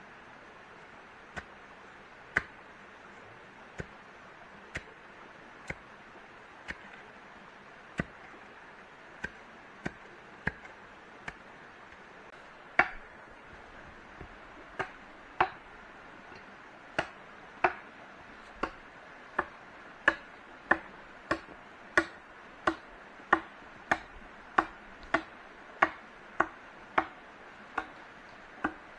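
A blade chopping wood: sharp single blows. They come irregularly about once a second at first, then faster and steadier at about one and a half a second in the second half, over a steady background hiss.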